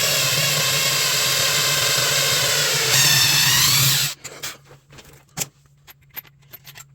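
Electric drill motor running under load, its pitch wavering, then cutting off about four seconds in. A few light clicks and knocks follow.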